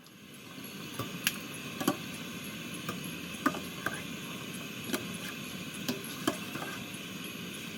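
Kitchen utensils clicking and knocking against a pot at an irregular pace, over a steady hiss, as blanched seafood is lifted out of boiling water.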